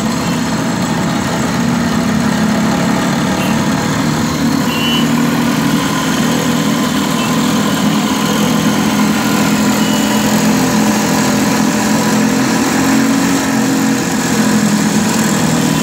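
Cotton candy machine running with a steady motor hum as its spinner head turns, throwing out sugar floss.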